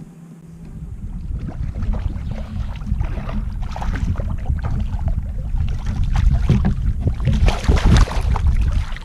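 Wind buffeting the microphone in a steady low rumble, with louder bursts of noise about four seconds in and again near the end.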